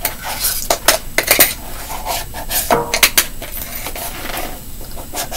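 Small scoop scraping and clinking inside a cornstarch canister and against a metal mixing bowl while measuring out scoops. It gives a run of sharp clicks and scrapes, bunched about a second in and again around three seconds.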